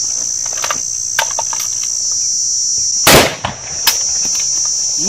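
AK-47 rifle fired: one loud shot about three seconds in and a second, sharper shot less than a second later, over a steady high-pitched drone.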